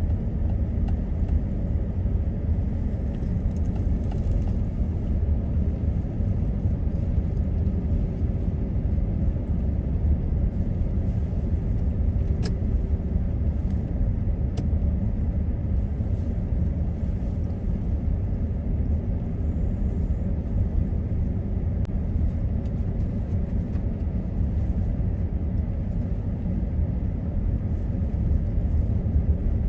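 Steady low road and engine rumble inside a truck's cabin while it drives along a snow-covered road, with a couple of faint clicks about halfway through.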